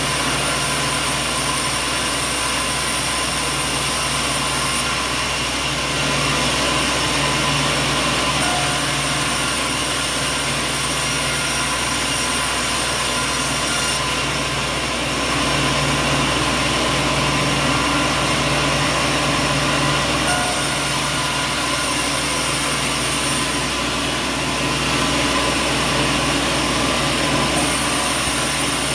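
Sawmill machinery running: a loud, steady mechanical din with several constant tones. Its character changes abruptly a few times.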